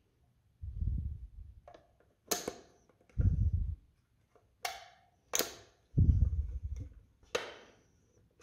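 Sharp plastic clicks and snaps, about four of them, from a clear plastic anti-theft box as a detacher key is fitted against its locking mechanism, with three dull low bumps of the box being handled in between.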